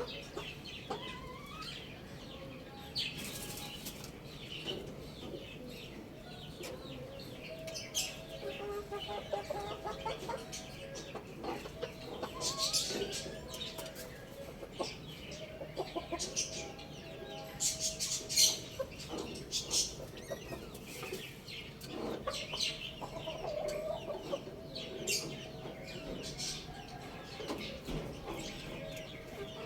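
Chickens clucking in short, scattered calls, with brief rustling bursts throughout.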